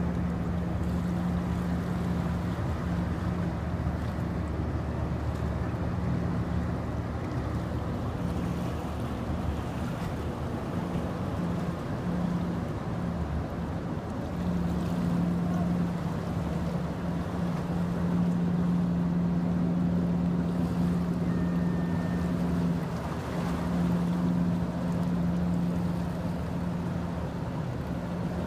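Offshore supply vessel's diesel engines running steadily as it passes, a low rumble with a steady hum that weakens for a few seconds midway and then returns stronger, over a wash of water and wind.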